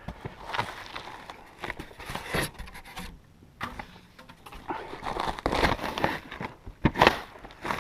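Irregular scraping, rustling and short knocks as a rooftop tent's mounting hardware is tried against a vehicle's roof rails.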